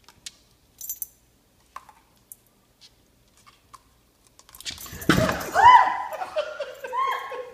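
Scattered light clicks and taps, then from about five seconds in a loud burst of high yelps from a dog, sweeping up and down in pitch and settling into a steady high whine.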